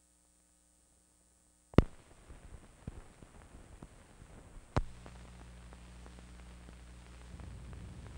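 Soundtrack noise from a 16mm film print: a sharp pop about two seconds in, then crackle and scattered ticks, a second pop near five seconds, after which a steady low hum sets in.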